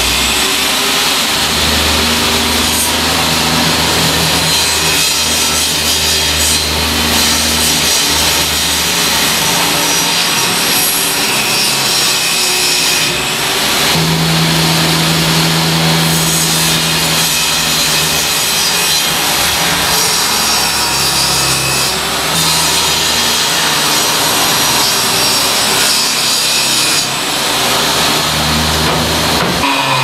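Table saw with its circular blade set through a wooden bench top, ripping a wooden plank; a loud, steady cutting noise with the motor's hum underneath.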